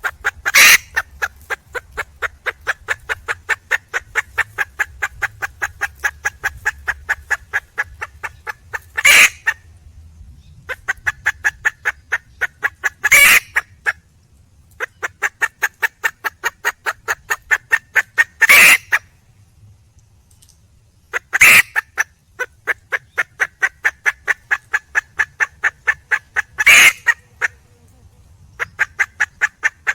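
Wild junglefowl hen calling for a mate: long runs of rapid, evenly repeated clucking notes, about five a second, each run ending in one louder, harsher call. The runs repeat about every four to nine seconds.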